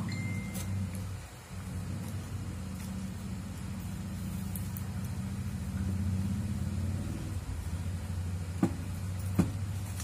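A steady low hum with a rumble in it, with two sharp clicks near the end.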